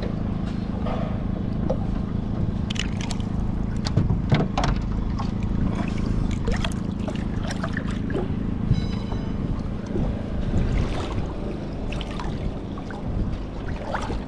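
Water splashing and sloshing as a fish is held and worked back and forth in the water against an aluminium boat hull, with many short irregular splashes, wind on the microphone and a steady low hum underneath.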